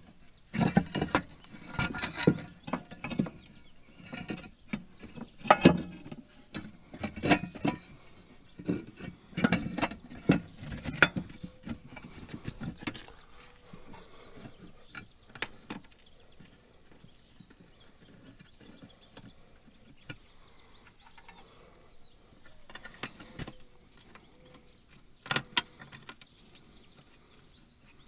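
Hand tools and metal parts being handled: irregular clinks, knocks and rattles, busy for the first ten seconds or so, then sparse, with a sharp double knock near the end.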